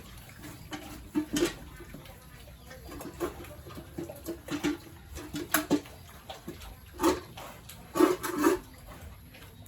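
Pigs grunting in short, irregular bursts, with a louder cluster of grunts near the end.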